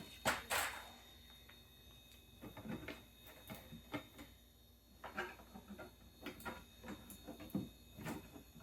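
Clicks and light knocks of crawler-course pieces being handled as bottom braces are snapped into place, with two sharp clicks about half a second in and smaller taps scattered after.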